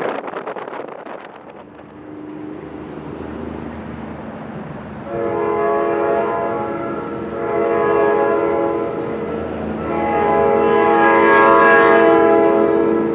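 Multi-note air horn of an approaching North Jersey Coast Line train, sounding a chord in three blasts that grow louder, the last one the longest and loudest.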